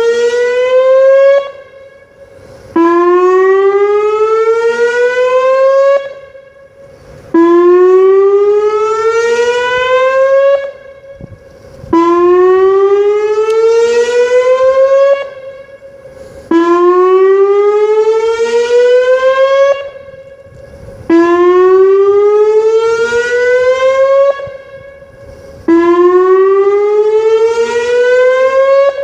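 Whelen WPS 2909 electronic outdoor warning siren sounding its weekly test. It plays a repeating rising sweep: each tone climbs steadily for about three seconds, cuts off, and starts over after a short gap, roughly every four and a half seconds.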